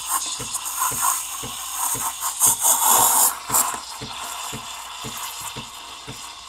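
Breville Barista Express pump pulsing in steam mode, a rapid, even knocking of about four pulses a second, with steam hissing out of the wand in a loud burst about halfway through.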